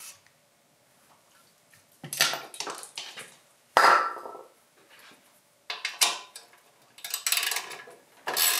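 Metal hand tools clinking and clattering in short bursts as a ratchet and socket are handled and set on a bolt, with one sharp, ringing metallic clank about four seconds in.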